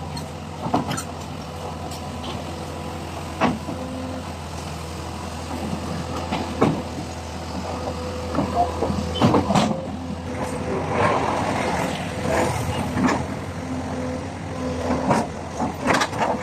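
Heavy vehicle engine running steadily at low revs, with sharp knocks and clanks every few seconds.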